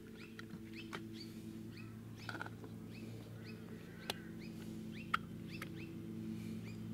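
Small birds chirping, quick rising chirps a few times a second, over a steady low hum, with a few sharp clicks.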